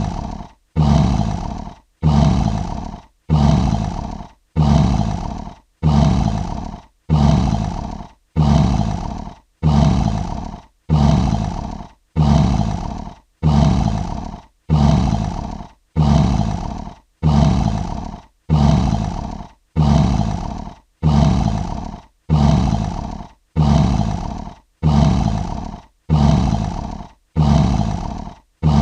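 Lion roar sound effect: a short, deep roar repeated over and over at just under one a second, each one starting loud and fading away before the next. The repeats are near identical, as from a looped recording.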